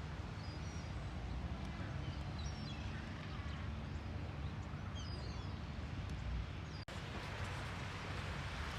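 Steady outdoor rumble and hiss with faint, short, high bird calls scattered throughout. The sound drops out for an instant about seven seconds in.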